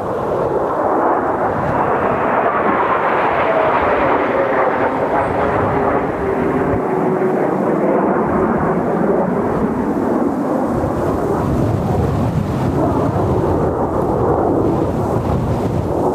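Jet noise from Blue Impulse Kawasaki T-4 jet trainers flying past: a loud, steady roar, with a faint whine that falls in pitch over several seconds early on as the jets go by.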